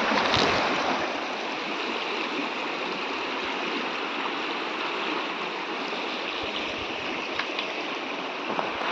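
Dikhu river water flowing: a steady, even rush of running water.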